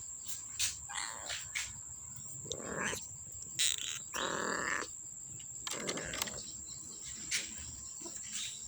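Young kittens mewing, several separate calls, the longest a little after the middle.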